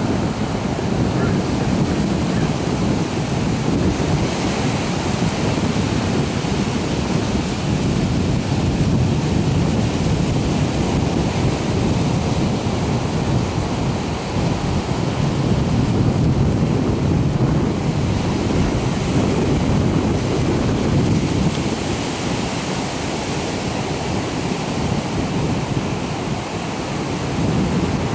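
Ocean surf breaking and washing up the shoreline, a steady rushing that swells and eases, with wind rumbling on the microphone.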